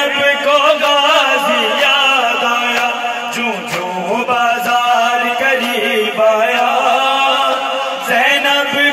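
A noha, a Shia mourning lament, chanted by male voices through loudspeakers, with overlapping sung lines.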